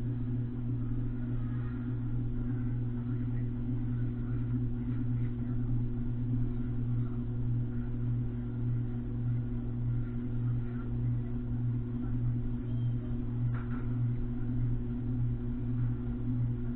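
Ceiling fan running, heard from a camera mounted on the fan: a steady low motor hum and rumble that pulses slightly.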